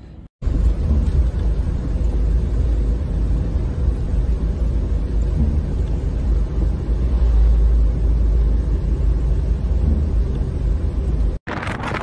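Steady low rumble of a vehicle driving on a snow-covered road, heard from inside the cab. Near the end it cuts to gusting wind on the microphone.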